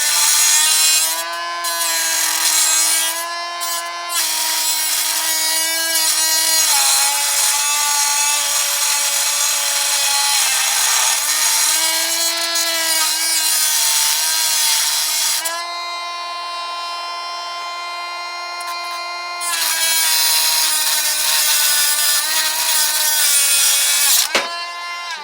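Dremel rotary tool whining as it cuts into a Master padlock, metal grinding against the wheel, its pitch sagging and wavering under load. For a few seconds past the middle it runs more cleanly, then near the end it is switched off and spins down quickly.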